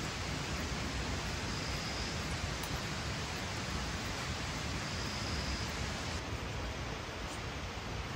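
Heavy rain falling steadily, an even dense hiss with no letup.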